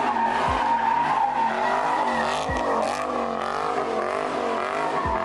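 A car drifting: tyres squealing loudly with the engine revving hard, the pitch wavering up and down throughout, easing off near the end.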